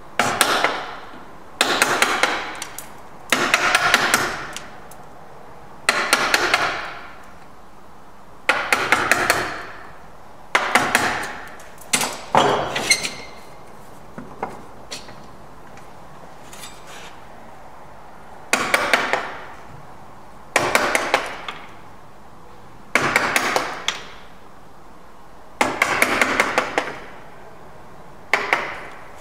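Mallet driving a chisel into wood, chopping out the waste of a bridle joint: short flurries of several quick knocks about every two seconds, with a pause of about five seconds midway.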